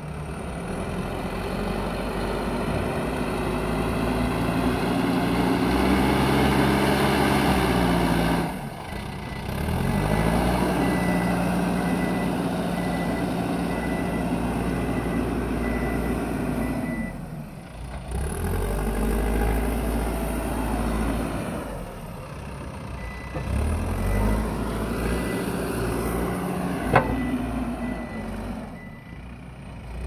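Mahindra backhoe loader's diesel engine working hard as it pushes and levels soil with its front bucket. Its pitch rises and falls with the throttle and drops off briefly several times. A high beep repeats through the middle stretch, and a single sharp knock comes near the end.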